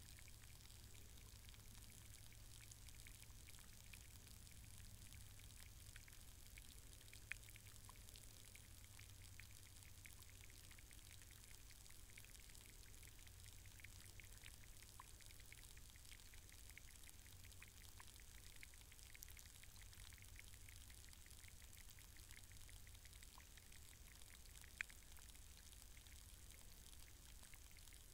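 Underwater sound of a shallow muddy puddle through a hydrophone: a faint steady hiss with scattered small, sharp clicks, two louder ones about 7 and 25 seconds in. The clicks are of the kind the recordist puts down to auger snails and other unknown puddle life. A low hum underneath fades out a little after 20 seconds.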